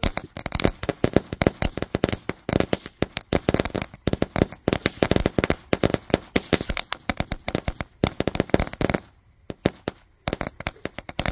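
Ground fountain firework crackling: a rapid, irregular stream of sharp pops. The pops stop for about a second near the end, then start again.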